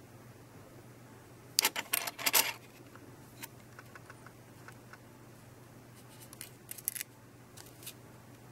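Metal coins and a clear plastic coin tube clicking and clinking as they are handled, with a burst of sharp clicks about two seconds in and a few lighter ones near the end, over a faint low hum.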